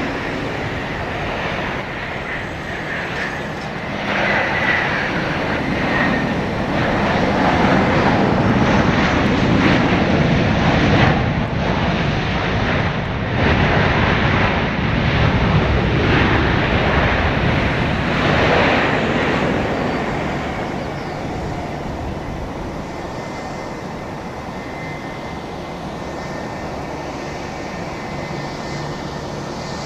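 Boeing 737-800 jet airliner landing, its CFM56-7B turbofan engines growing louder about four seconds in, loudest through the middle, and fading after about twenty seconds to a fainter steady whine.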